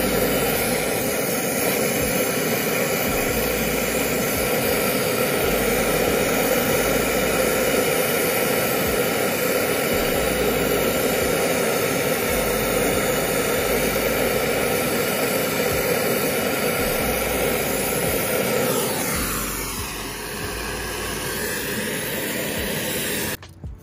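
Brazing torch flame burning with a steady rushing noise while brazing a copper refrigerant line onto a replacement freezer compressor. The noise drops a little and changes about nineteen seconds in, then stops abruptly just before the end.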